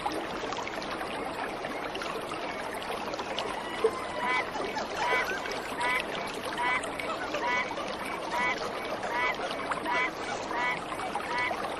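A waterfall's steady rush of water, with a bird calling over it from about four seconds in: about ten short, evenly spaced calls, a little more than one a second.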